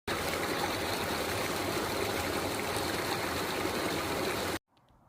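Water running in a stream, a steady rushing that cuts off abruptly near the end.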